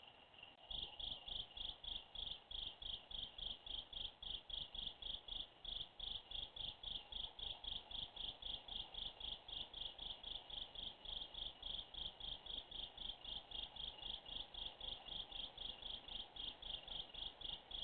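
A cricket chirping in a steady, even rhythm of about five high-pitched chirps a second. The chirping jumps louder about a second in.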